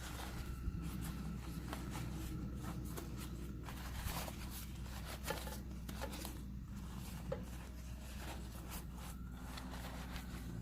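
Scattered clicks and rustles of things being handled, over a steady low hum.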